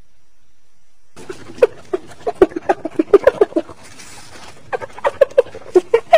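Spotted hyena giggling: a rapid series of short staccato calls, about five a second, starting about a second in, breaking off briefly and then starting again.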